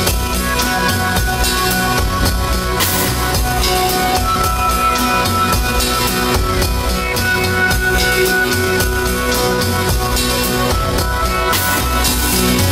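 Music with a drum kit: steady pitched tones over a regular drum beat.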